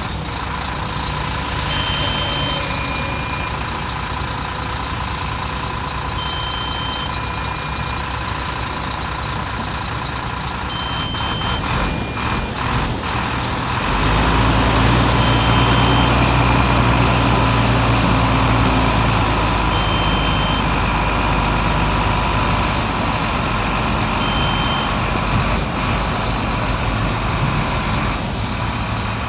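Heavy diesel earthmoving machinery running, with a short two-note beep recurring every few seconds. About halfway through, the engine labours harder and its deep hum grows louder, as if under load. A few clanks come shortly before the engine picks up.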